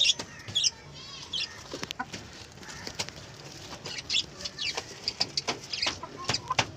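A flock of Indian country chickens (nattu koli) clucking, with many short, high calls scattered throughout.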